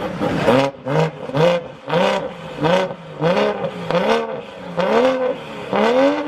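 Performance car engine revved in repeated quick throttle blips, about ten of them, each rising and falling in pitch. A longer rev comes near the end.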